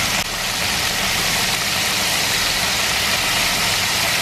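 Battered cod fillets deep-frying in very hot canola oil: a loud, steady sizzle of oil bubbling high around the fish.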